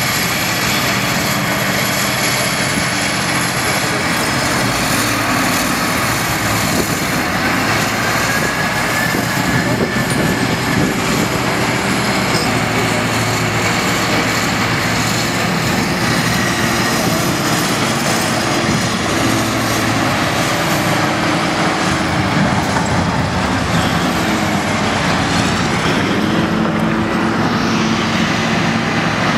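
Big diesel engines of a Caterpillar 992G wheel loader and a Caterpillar 777C haul truck running steadily, with a high whine that wavers in pitch above the engine note.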